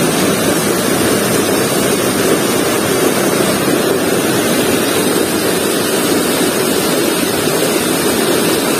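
Fast, shallow river running over rocks and small rapids: a loud, steady rush of water.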